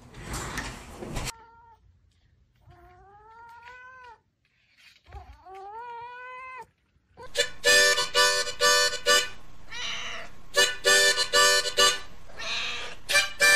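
A domestic cat meows twice, two drawn-out calls that rise and then fall in pitch, after a brief noisy burst at the start. From about seven seconds in, loud music of short, repeated chords takes over.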